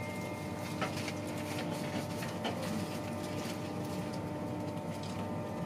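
Inside a coach of an InterCity 225 train: a steady rumbling hum with several held tones, overlaid by scattered sharp clicks and knocks.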